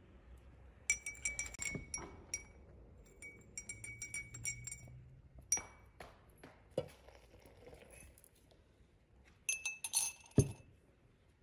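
Metal teaspoon clinking against the inside of a cut-glass tea glass as it is stirred, in short runs of ringing clinks, with the loudest run near the end ending in a knock.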